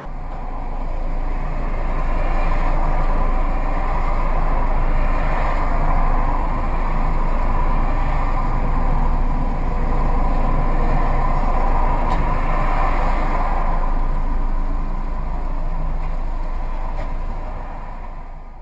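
Steady road and engine noise of a car driving at speed, easing off near the end.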